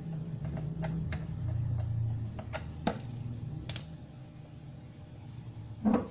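Low steady hum from a power amplifier heard through its speaker, stronger for the first few seconds and then weaker, under scattered sharp clicks as RCA cable plugs are handled and pushed into the amplifier's input jacks, with one louder knock near the end.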